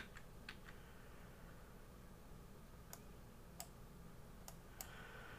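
Near silence broken by about eight faint, short computer clicks, bunched near the start and again after the middle, from stepping through video frame by frame.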